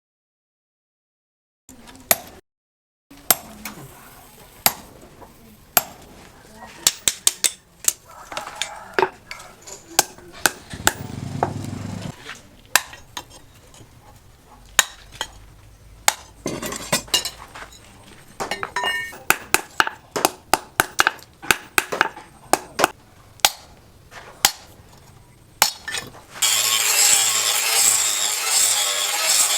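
Hammer blows on steel: a long run of sharp, irregular metallic strikes and clinks, dense in places. Near the end a steady rasping noise starts.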